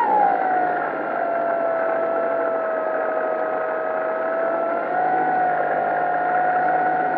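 Dynam 3720-650kV brushless electric motor and propeller whining, heard from the plane's on-board camera with air rushing past. The whine drops in pitch right at the start as the throttle comes back, holds steady, then rises a little about five seconds in.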